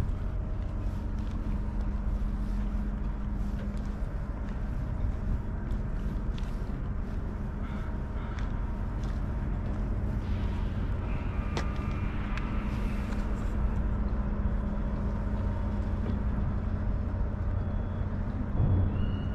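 Steady low engine hum idling without change, with a few faint clicks and knocks over it.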